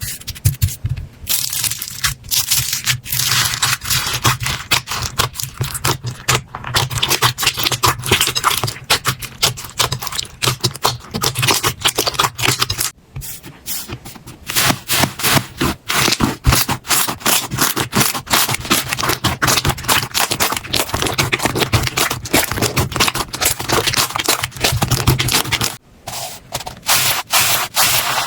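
Slime being squeezed, pressed and poked: dense crackling and popping clicks with scraping, broken by two short pauses, one about halfway through and one near the end.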